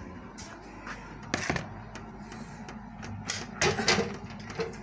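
Several sharp clicks and knocks from a plastic food tub being handled: one cluster about a second and a half in, then more between three and four seconds in.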